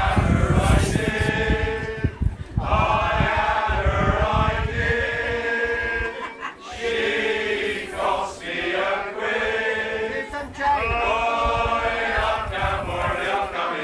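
A choir of voices singing in long, slow phrases with short breaks between them, over a low rumble in the first few seconds.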